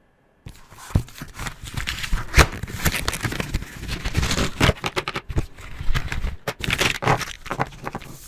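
Felt-tip marker pen coloring on paper in rapid repeated strokes, starting about half a second in.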